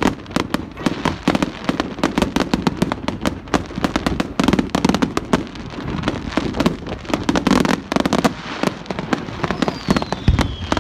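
Fireworks display: a rapid, continuous barrage of bangs and crackling reports, many a second, with a faint whistle falling in pitch near the end.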